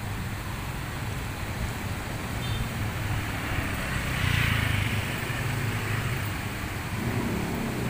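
Rushing floodwater of a swollen river: a steady low rumble with a hiss that swells about four seconds in.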